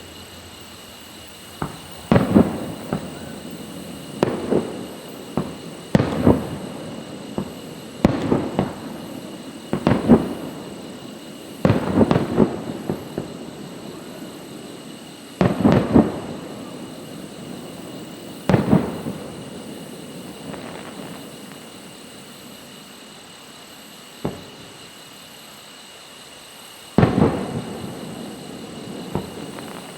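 Aerial fireworks shells bursting, about fifteen booms that often come in quick pairs, each trailing off in a long rumbling echo. They come every couple of seconds at first and thin out to a few spaced bangs near the end.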